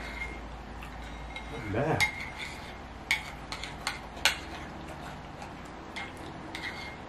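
A metal spoon stirring and scraping in a ceramic bowl of a thick mixture, with a run of sharp clinks against the bowl between about two and four and a half seconds in and a couple more near the end. A short hum-like voice sound comes just before the clinks start.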